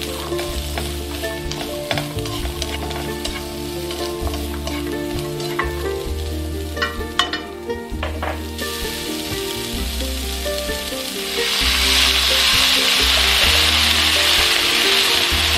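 Carrot slices and leek sizzling in oil in a hot wok, stirred with chopsticks that click against the pan. Past the middle the sizzle jumps to a loud, steady hiss as a tablespoon of water goes into the hot pan.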